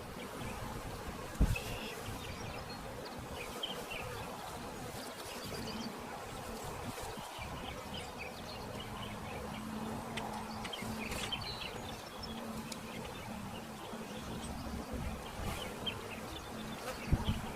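Honey bees buzzing around an open hive, with one steady close buzz holding its pitch for several seconds in the second half. A sharp knock comes about a second in and another near the end.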